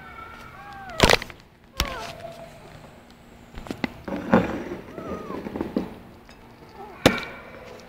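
Kittens meowing in short high calls that rise and fall, with three sharp, loud knocks, about a second in, just before two seconds, and near the end.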